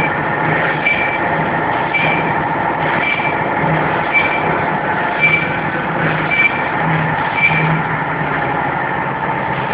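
Non-woven bag making machine running steadily, its working cycle repeating about once a second as it feeds the printed fabric roll.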